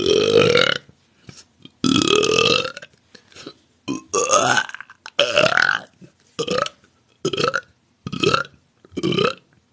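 A woman belching a run of about eight burps: the first two long and loud, then shorter ones coming about once a second, several sliding upward in pitch.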